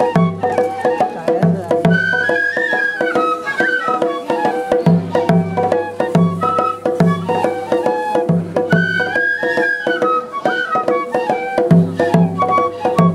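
Festival ohayashi: Japanese transverse bamboo flutes playing a melody over a steady taiko drum beat. The high flute phrase repeats about six seconds later.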